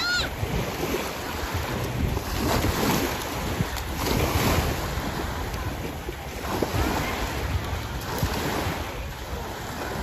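Small waves washing up and breaking on the shore in steady swells, with wind buffeting the microphone.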